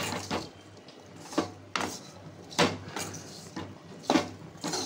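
Metal ladle scraping and clinking against an aluminium kadai as drumstick, raw mango and onion pieces are stirred and sautéed with chilli powder and salt, in irregular strokes roughly every half second to a second over a low steady hum.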